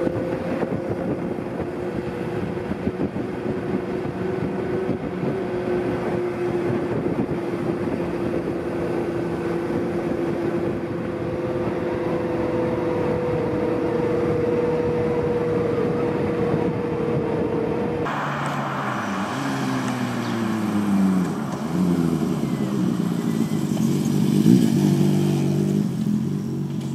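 Exhaust note of a Honda CB400Four's air-cooled inline-four engine through a short aftermarket exhaust, cruising at a steady speed with wind and road noise. After a cut about two-thirds of the way in, it pulls away, its pitch rising and dropping several times through the gears.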